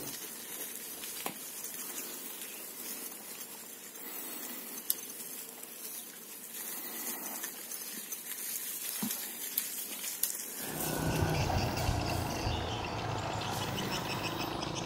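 Outdoor ambience: a steady high hiss with a few faint clicks. About ten seconds in it switches abruptly to a fuller, lower, rougher noise.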